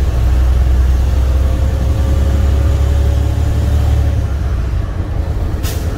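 Semi truck's International MaxxForce 13 diesel engine running while driving, heard inside the cab as a loud, steady deep drone that eases off about four seconds in. A brief sharp sound comes near the end.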